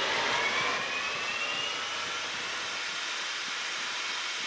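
Metal lathe spindle speeding up to 2000 rpm: a whine rising in pitch for about the first two seconds, then running steady over a constant hiss.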